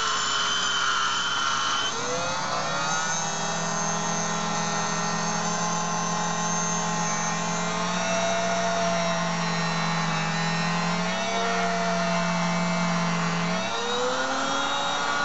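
Auto lens groover running, its small motor-driven grooving wheel cutting a groove into the edge of a rotating plano lens; the whine wavers slowly in pitch as the cut loads and eases around the lens. A lower steady hum joins about two seconds in and stops near the end.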